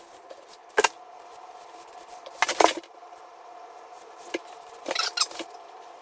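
A paintbrush working paint onto wooden door casing, giving a few short clicks and scrapes as the brush and its ferrule touch the trim, the loudest cluster about two and a half seconds in and another near five seconds. A faint steady hum runs underneath.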